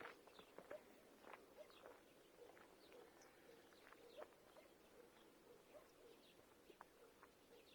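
Near silence with faint, scattered bird chirps and an occasional soft click.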